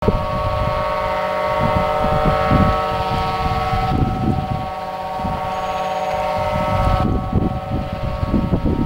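Quarry blast warning siren sounding one steady, unwavering multi-tone blare, the alarm given before a shot is fired. Wind buffets the microphone underneath it.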